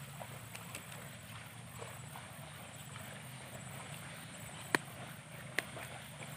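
Faint outdoor ambience: a steady low hum with a faint, evenly pulsed high chirping, scattered soft ticks, and two sharp clicks a little under a second apart near the end.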